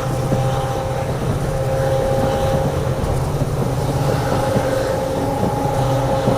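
WDP4D diesel locomotive's EMD 16-710 two-stroke engine running under power, a steady low drone with a steady whine above it. Irregular clicking and rattling from the moving train sits underneath.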